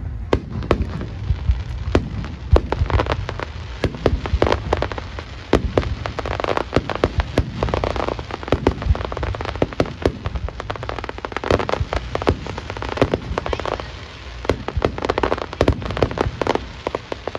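Fireworks finale barrage from a star mine: dense, rapid crackling from many shells bursting together, over a steady low rumble of booms.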